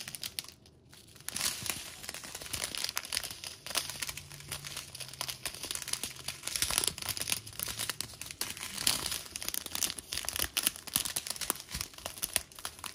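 Clear plastic bags of diamond-painting drills, joined in a Diamond Art Club strip, crinkling and rustling as they are handled. The sound comes as irregular small crackles and starts after a brief lull about a second in.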